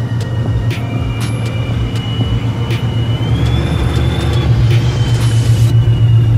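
Car engine idling with a steady low exhaust rumble, growing slightly louder toward the end.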